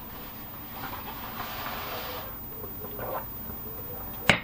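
Quiet kitchen handling sounds at a counter: a few soft knocks over a low background hiss, then a sharp click, such as a mug being set down or picked up, shortly before the end.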